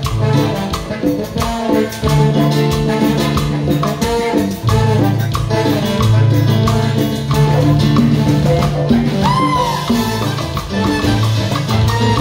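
Live cumbia band playing, with congas and a trumpet and saxophone section over a steady low bass line.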